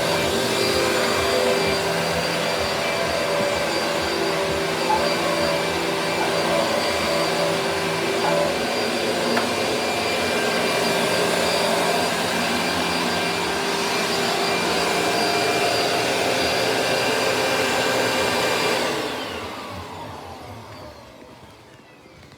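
Vacuum cleaner motor running steadily with a whining hum, then switched off about nineteen seconds in, its whine falling in pitch as the motor winds down.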